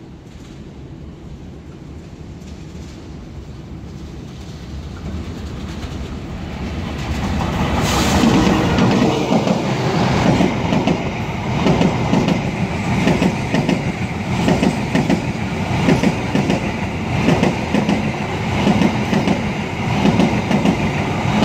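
Argo Parahyangan passenger train, hauled by a diesel locomotive, crossing a steel railway bridge. It grows steadily louder as it approaches over the first eight seconds or so, then its coaches pass close by with a loud, rhythmic clickety-clack of wheels on the rails.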